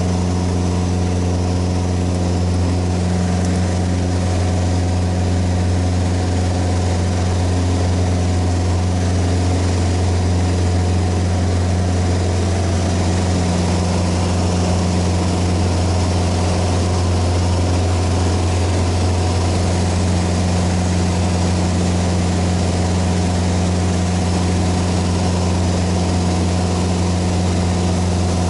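Single-engine piston light aircraft's engine and propeller heard inside the cabin: a loud, steady drone with a deep fixed pitch while the plane climbs after takeoff.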